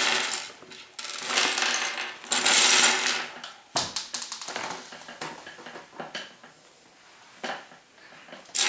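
A plastic bag of Lego pieces crinkling as it is shaken out, with small plastic parts clattering onto a wooden table. About a third of the way in the rustling stops, and a few separate clicks and knocks of pieces follow.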